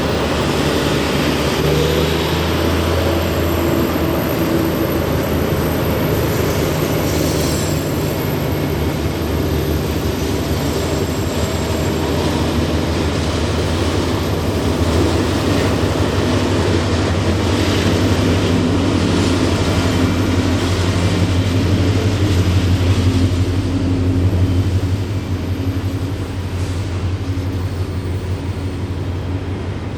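Diesel locomotives of a grain train running with a steady low engine drone that grows louder until about 25 seconds in, then eases off.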